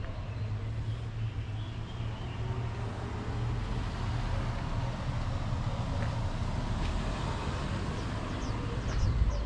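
Low, steady rumble of a motor vehicle's engine, swelling slightly near the end.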